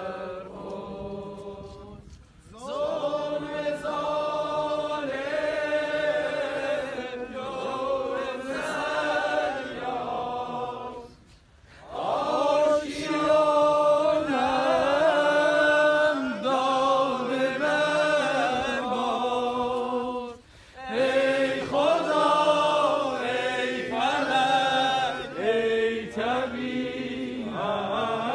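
A large crowd of mourners singing together in unison, in long sung phrases broken by brief pauses.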